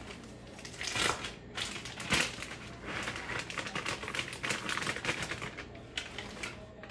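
Plastic bag of shredded cheese crinkling and rustling as it is tipped and shaken out over a pot, a dense run of fine crackles.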